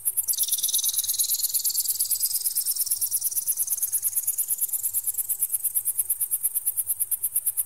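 Synthetic bird-repellent tones: a very high-pitched pulsing at about seven beeps a second, over which a shrill tone drops sharply at the start and then glides slowly upward for several seconds.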